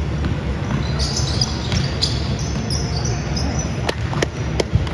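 Basketball being dribbled in a large indoor hall during a game, with a few sharp bounces near the end, over the steady noise of the crowd in the gym.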